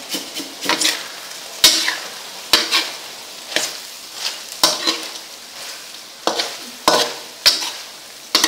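Metal spatula scraping and clacking against a wok every second or so, at an irregular pace, while chopped frog meat with chillies sizzles steadily in hot oil.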